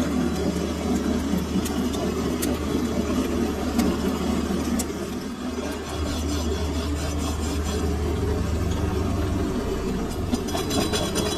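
Metal lathe running steadily, its chuck spinning a long steel shaft: a continuous motor and gearbox hum with a few faint ticks.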